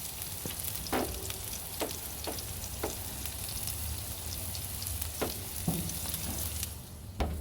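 Smash burger patties frying on a hot cooking surface: a steady sizzling hiss, broken by a handful of sharp clicks and knocks.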